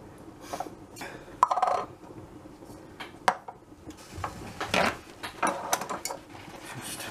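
Small metal tools and airgun parts handled on a worktop: scattered light clicks, clinks and knocks, the sharpest about three seconds in. Around four seconds in a spray can is set down and a paper towel is rustled as it is spread out.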